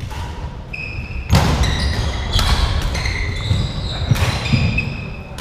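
Badminton rally on a wooden sports-hall floor: trainers squeaking in short, varied-pitch chirps as the players move, with a few sharp racket hits on the shuttlecock and footfalls thudding on the boards.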